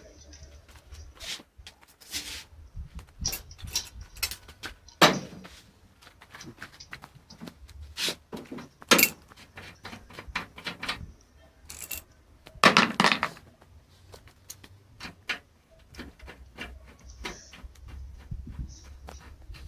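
Metal tools and fittings clicking, clinking and knocking while the caps on a split air conditioner's service valves are unscrewed, an irregular run of sharp knocks with a louder rattle lasting about a second near the middle.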